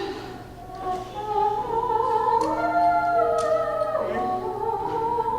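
A high female voice singing a wordless lullaby vocalise in long held notes that step and glide between pitches, over a soft musical accompaniment.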